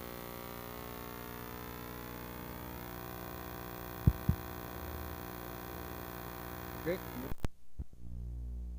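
Steady electrical hum with many overtones on an old video-tape soundtrack, broken by two sharp clicks about four seconds in. Near the end the sound cuts off abruptly with a few clicks at an edit, leaving a lower hum.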